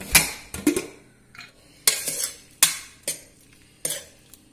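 Stainless-steel pressure cooker being opened, its lid clanking against the pot, then a steel ladle clinking against the inside of the cooker as the cooked ash gourd and cowpeas are stirred. About six separate metallic clanks.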